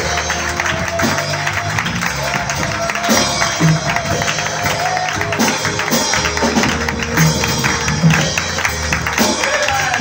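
Live praise music from a band with a drum kit, playing steadily with a regular beat and sustained bass notes.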